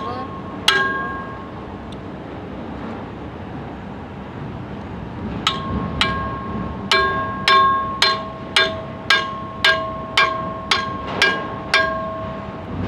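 Hammer blows on the steel of a bulldozer sprocket assembly being knocked apart, each blow ringing with a clear metallic tone. One strike comes about a second in, then after a pause a steady run of about a dozen strikes, about two a second.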